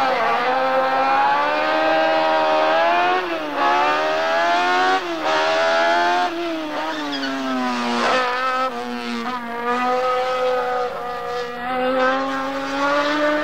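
Group 5 BMW race car's 2-litre M12/7 four-cylinder engine at high revs. It climbs in pitch and drops sharply at upshifts about three times in the first seven seconds, then runs at steadier high revs.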